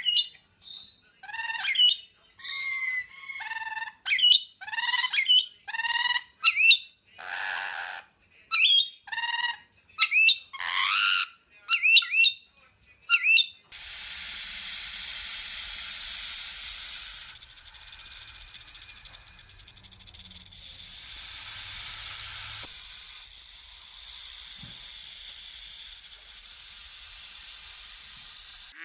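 A bird calling over and over in short calls, roughly one to two a second, many of them sliding in pitch. About halfway through the calls stop and a steady hiss takes over.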